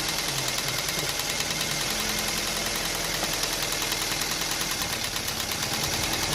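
Maruti Swift CNG car's engine idling steadily. The car has a misfiring CNG injector that needs replacing.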